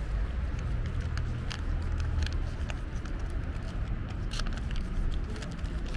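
A cat eating wet food from a tray, with scattered short, irregular clicks of chewing and licking, over a steady low rumble.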